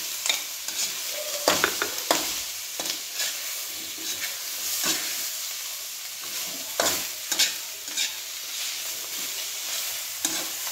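Chopped carrots and chicken sizzling in oil in a metal wok, with a steady frying hiss. A metal spatula scrapes and clinks against the pan at irregular moments as the food is stirred.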